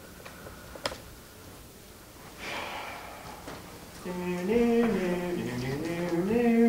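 A man's voice humming a slow wordless tune in low held notes that step and glide, starting about four seconds in; before it, a single click about a second in.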